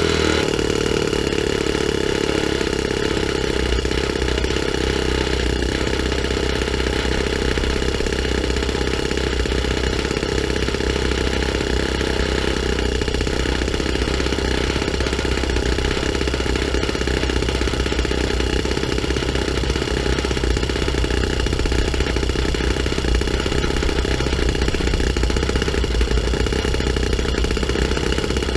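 O.S. FS-20 four-stroke glow engine running without a muffler at a low idle of about 3,000 rpm, turning a 9x5 propeller. It slows from a higher speed right at the start, then runs steadily at idle.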